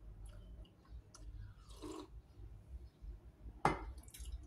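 A quiet drink from a stainless steel cup, then a single sharp clack near the end as the cup is set down on the table.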